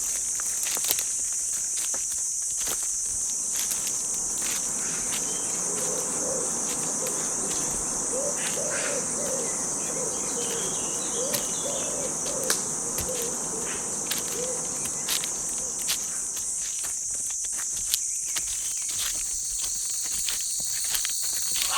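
Dense jungle insect chorus, a steady high-pitched shrilling that never lets up, with scattered light clicks and crackles. A faint, low, wavering call comes and goes between about six and fifteen seconds in.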